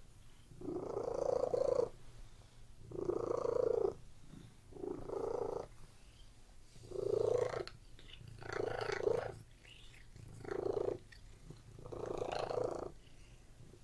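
Domestic cat purring: a steady low purr that swells louder with each breath, about seven swells roughly every two seconds.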